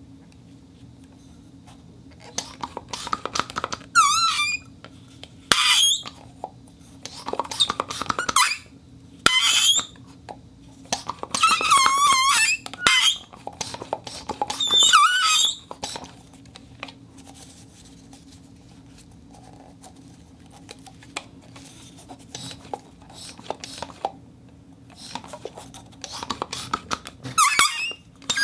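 A vacuum cleaner motor hums steadily while air squeaks through its intake in a series of short bursts, some of them wavering, warbling whistles, as the suction is choked and released to make sound effects. The squeaks stop for several seconds midway, leaving only the motor's hum, then return near the end.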